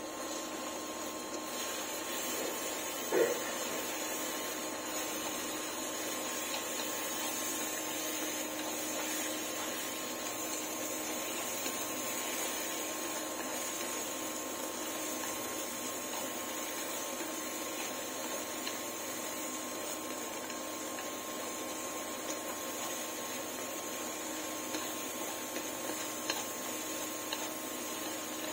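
A steady mechanical hum with a high hiss, unchanging throughout. A single short knock or clink sounds about three seconds in, and a few faint ticks come near the end.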